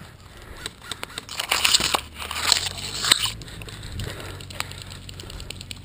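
Rustling and crunching of leaves and branches brushing close against the microphone, with scattered sharp clicks. It is loudest from about one and a half to three seconds in.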